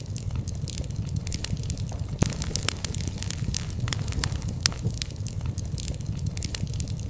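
Wood fire burning in a fireplace: a steady low rumble of flames with irregular sharp crackles and pops of burning logs, a few louder snaps among them.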